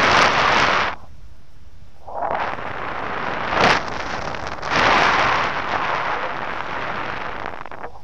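Rushing wind buffeting the microphone of a camera carried by a paraglider pilot in flight. It comes in gusts: one loud rush at the start, then a longer swell with a brief sharper blast about three and a half seconds in.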